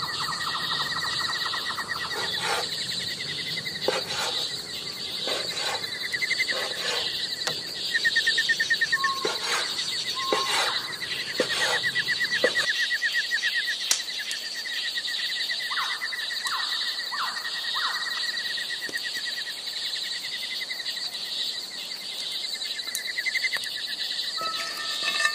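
Insects trilling steadily, with occasional bird chirps. During the first half a cleaver knocks on a wooden cutting board several times as raw chicken is chopped.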